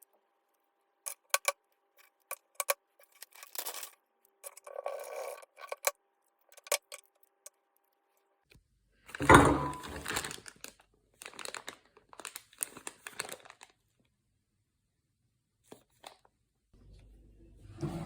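Handling noises in a small room: a run of sharp clicks, then rustling and scraping, loudest about nine seconds in. A low steady hum starts near the end.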